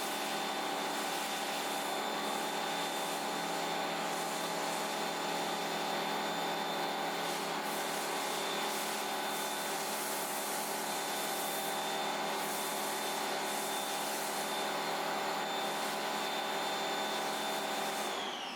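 Electric pressure washer motor running steadily with a hissing spray, feeding a foam cannon. Just before the end the motor shuts off and winds down with a falling whine.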